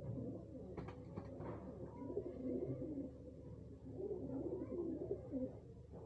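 White domestic pigeons cooing over and over, each coo a low sound that rises and falls in pitch.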